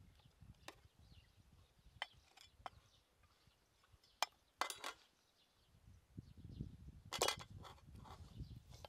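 Metal spatula clinking and scraping against a steel wok as a pig leg is turned in it: a few sharp clinks, then longer scrapes, the loudest about seven seconds in. A low rumble rises underneath in the last few seconds.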